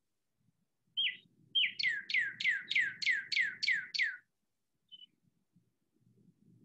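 A songbird singing: two short high notes, then a quick run of about eight notes that each sweep downward in pitch, about three a second, followed by one faint note.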